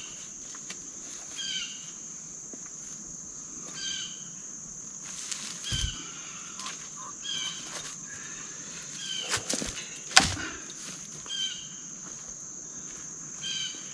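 Crickets or other insects droning steadily on one high note, with a bird giving short chirps every couple of seconds. A dull thump about six seconds in and sharp knocks around ten seconds in, the loudest a single crack, come from logs being set in place.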